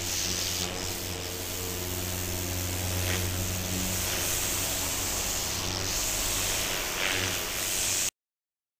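Pressure washer running: a steady low motor hum under the hiss of the water jet spraying across a van roof. It cuts off abruptly near the end.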